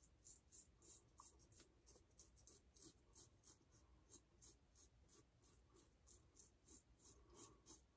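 Faint scraping of a Blackland Blackbird Titanium double-edge safety razor, fitted with a fresh Bolzano SuperInox blade, cutting stubble through shaving lather. It goes in short, quick strokes, about three a second.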